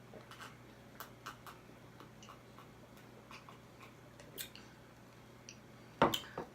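Close-miked eating sounds: scattered small clicks and crackles of chewing and handling crab legs, with a louder sharp knock about six seconds in.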